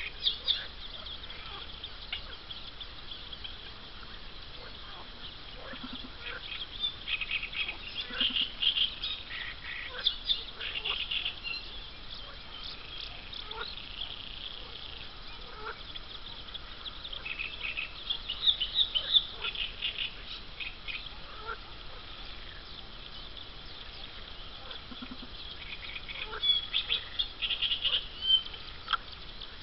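Mallard ducklings peeping: many short, high-pitched cheeps that come in several bursts with quieter stretches between, and a few short low calls among them.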